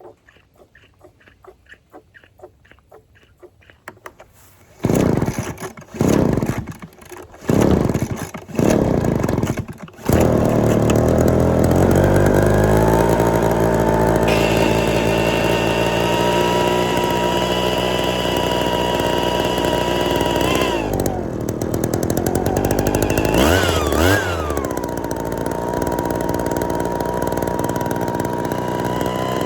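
Small two-stroke engine of a backpack leaf blower being pull-started: a few short bursts as it fires on the pulls, then it catches about ten seconds in and runs steadily, revving up and back down twice near the end. It is running on newly replaced fuel lines after ethanol-damaged ones kept it from running.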